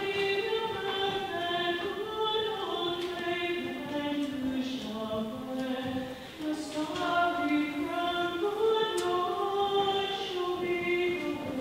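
A choir singing a slow melody with long held notes.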